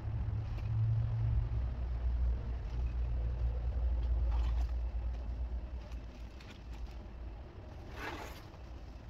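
Old roofing scraps and debris rustling and scraping as they are gathered and pushed into a black plastic trash bag, with the loudest rustle about eight seconds in. A steady low rumble runs underneath.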